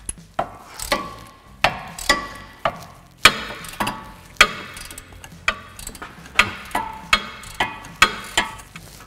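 Hand ratchet clicking as it turns out a loosened wheel-bearing hub bolt with a triple-square bit. Sharp metallic clicks come about twice a second, each with a brief ring.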